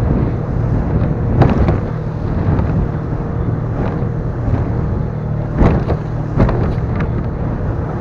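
Suzuki outboard motor running steadily at speed, driving an inflatable boat, with wind buffeting the microphone. The hull smacks into waves about four times.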